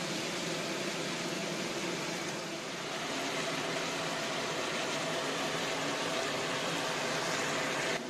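Sliced green vegetables sizzling in a frying pan on a gas burner: a steady hiss.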